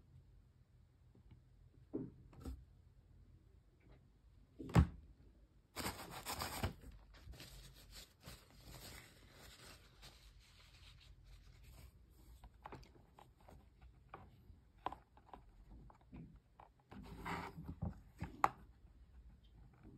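Hands handling cosmetic packaging: scattered light taps and knocks, rubbing, and rustle like tearing or unwrapping. There is a louder rustling stretch about six seconds in and another near the end.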